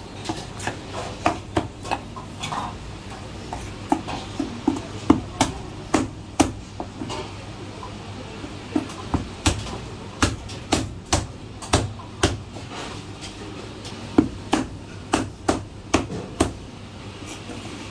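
Chinese cleaver chopping marinated goose through the bone on a plastic cutting board: runs of sharp chops, about three a second, with a short pause partway through.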